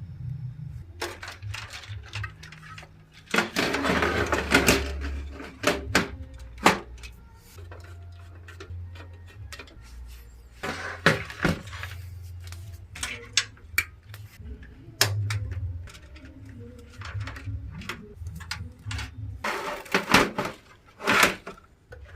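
Hands handling computer parts during a PC build: scattered clicks and knocks, with two longer rustling bursts, one about four seconds in and one near the end, over a low rumble.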